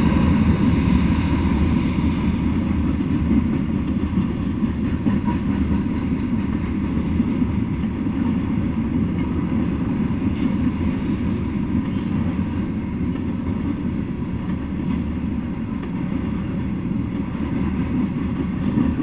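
Freight train of covered hopper cars rolling past, steel wheels on the rails making a steady, heavy rumble.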